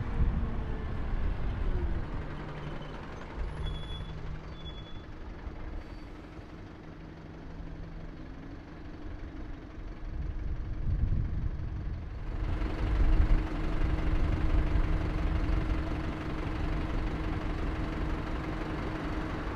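Low rumble of a motor vehicle's engine running, with a steady hum, growing louder about two-thirds of the way through.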